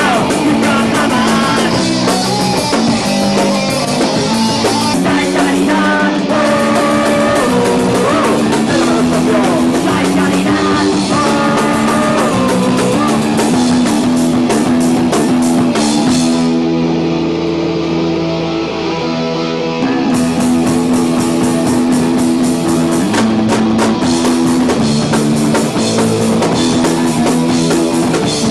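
A rock band playing loud, with electric guitar, a drum kit and singing. About two-thirds of the way through the drums drop out for a few seconds, leaving the guitar and bass, then the full band comes back in.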